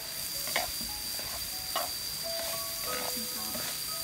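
Diced carrots and vegetables sizzling in a hot frying pan as a metal spatula stirs them. The spatula scrapes and taps against the pan about every half second.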